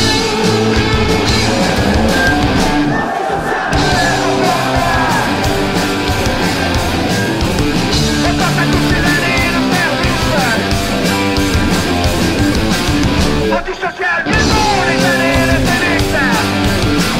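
Loud rock music, heavy and guitar-driven, with a short break about three-quarters of the way through.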